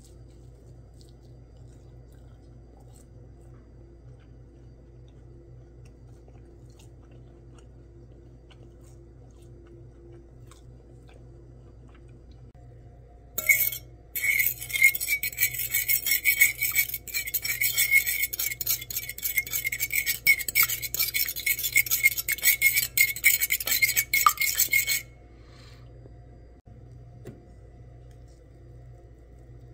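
A fork whisking eggs in a bowl: rapid clinking and scraping of the tines against the bowl, starting about halfway through and running for about eleven seconds. Before and after, only a faint steady hum.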